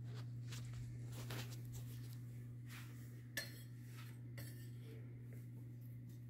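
Light clinks and scrapes of a metal pie server against a perforated metal pizza pan as pieces of dough are set down on it, the sharpest clink about three and a half seconds in. A steady low hum runs underneath.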